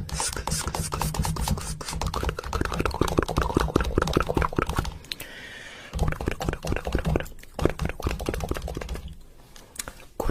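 Rapid tapping on a tortoise shell, many light clicks a second, with a pause of about a second midway and the tapping thinning out near the end.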